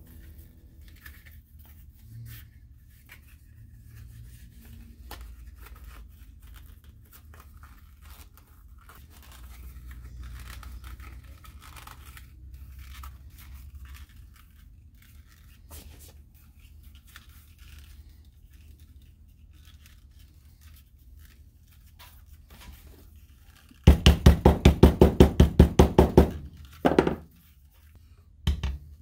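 Faint handling rustles and ticks, then about 24 seconds in a hammer taps rapidly, about six blows a second for two seconds, followed by two single knocks.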